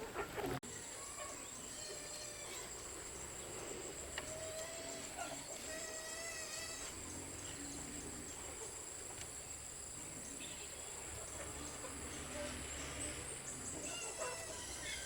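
Rural outdoor ambience: insects trilling steadily at a high pitch, with a few scattered bird calls.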